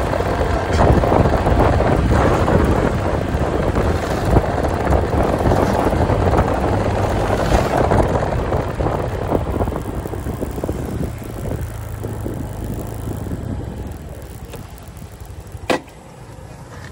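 Motorcycle running along with wind rushing over the microphone and a steady low engine hum. It dies down gradually from about ten seconds in, and a single sharp click comes near the end.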